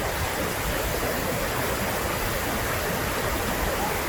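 Waterfalls of the Mirage volcano feature pouring steadily into its lagoon: an even, unbroken rush of water.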